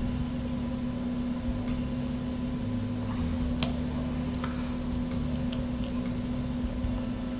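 A steady low electrical hum with a few faint, scattered clicks and ticks from fingers handling a small plastic-backed circuit board and its double-sided tape.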